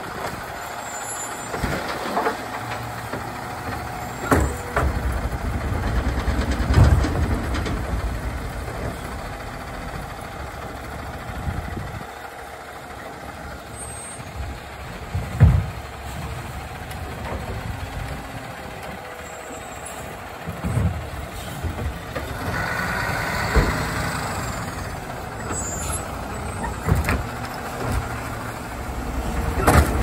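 Autocar ACX garbage truck with a Labrie Automizer side-loading arm at work: engine running while the hydraulic arm lifts and dumps wheeled trash carts, with sharp bangs and clanks of cart and arm against the hopper. The truck pulls ahead between pickups and begins the next dump near the end.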